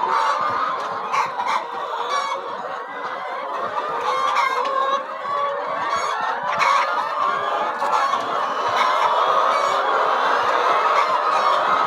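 A large flock of chickens clucking and calling over one another in a steady, continuous chorus, with scattered short clicks mixed in.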